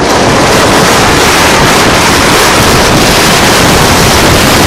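Loud, steady wind noise buffeting the microphone, mixed with the rush of a sled sliding fast over packed snow.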